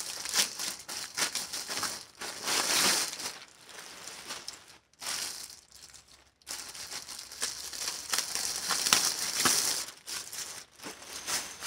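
Plastic packaging crinkling and rustling in irregular bursts, with short pauses, as a shipping package is opened and a dress is drawn out of its clear plastic bag.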